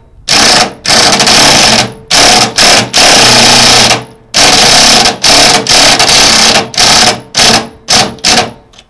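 Cordless impact driver hammering as it drives screws into the aluminum jon boat's gunwale to fix a mount base. It runs in about a dozen loud stop-start bursts, longer runs at first and then short quick pulls of the trigger as the screws near their seat.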